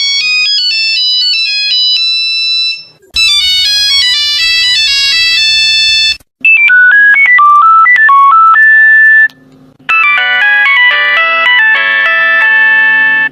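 Nokia mobile phone ringtones played one after another in four short clips with brief breaks between them. Some are thin single-line beeping melodies and others fuller multi-note polyphonic versions.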